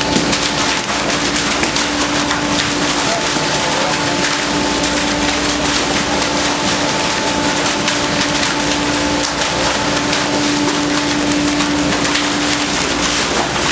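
A vacuum fish pump discharging water and live sea bass onto a sorting chute. Water and fish land in a dense, rain-like patter of splashes and slaps over a steady machine hum, and the hum stops about a second before the end.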